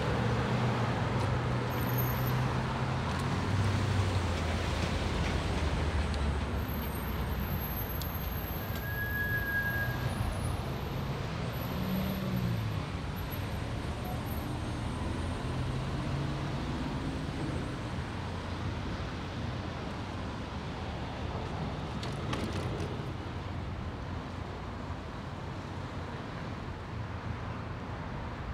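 Road traffic on a busy city street: a steady noise of cars going past, with engines humming, loudest in the first few seconds.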